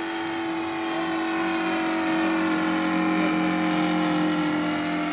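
Radio-controlled Stearman biplane's engine and propeller droning steadily in flight as it passes overhead, growing louder to a peak about halfway through and then easing off, its pitch dropping slightly as it goes by.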